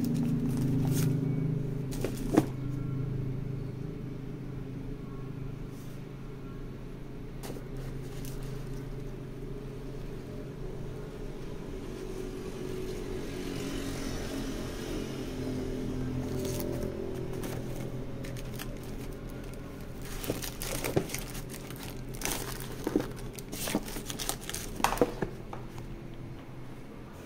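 Handling of an old paperback manga and a plastic storage tub: rustles as pages are turned and scattered clicks and knocks as items are shifted, thickening over the last several seconds. A steady low hum lies underneath.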